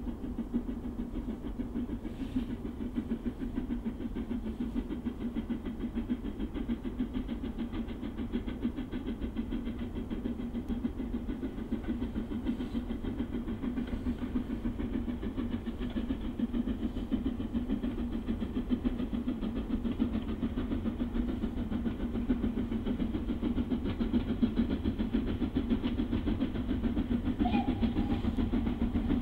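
Steam locomotive running with its train, a steady working sound that grows gradually louder as it approaches.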